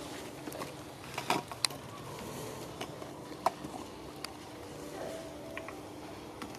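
Outdoor ambience: a steady low hum under a faint hiss, with scattered sharp clicks and taps and a couple of brief short tones about five seconds in.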